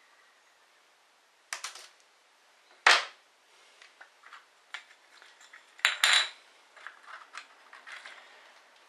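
Sharp clicks and clinks of small objects being handled on a wooden table: metal scissors set down, and a clear plastic disc fitted into a cut-down aluminium Coke can. A few clicks come about a second and a half in, a loud one near three seconds, another loud cluster about six seconds in, with lighter ticks between.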